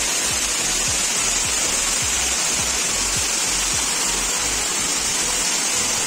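Steady roar of a tall waterfall pouring onto rocks at its base, a constant hiss of falling water and spray.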